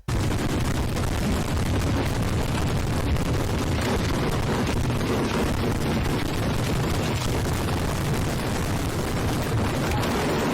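A large mass of fireworks going off at once: a dense, continuous barrage of bangs and crackle, too many to count, holding steady throughout and cutting off suddenly at the end.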